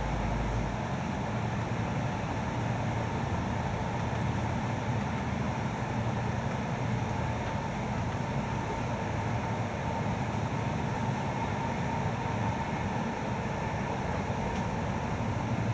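InterCity passenger train running along the track, heard from inside a carriage: a steady, even rumble of wheels on rails. A deep hum beneath it cuts off about a second in.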